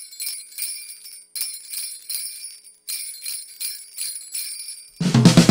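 Sleigh bells shaken in a steady rhythm, about two to three shakes a second, as the intro of a Christmas pop song. About five seconds in, the rest of the band comes in loudly with a deep low end.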